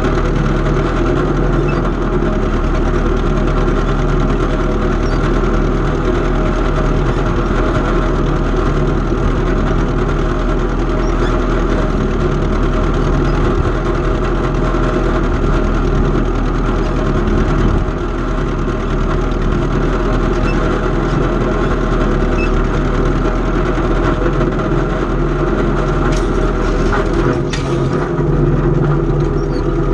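Antique farm tractor engine running steadily.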